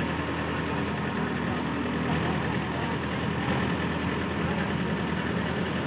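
Heavy diesel engine running steadily, a constant low hum without revving.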